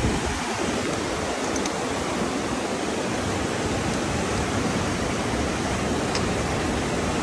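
Steady rushing of a fast mountain stream, an even hiss of running water.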